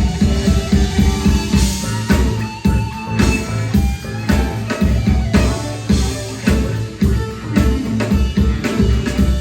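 Live rock band playing an instrumental passage: electric guitars over a steady drum-kit beat and bass.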